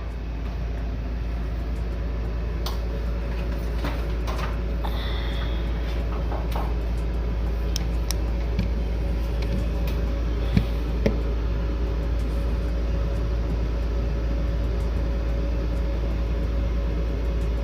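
Mr. Heater Big Maxx 80,000 BTU natural-gas garage heater starting up and running: its large blower fan builds over the first couple of seconds to a steady hum over a low rumble. A few light clicks and knocks come through along the way. The fan is braced with an added steel frame to keep it from shaking the unit.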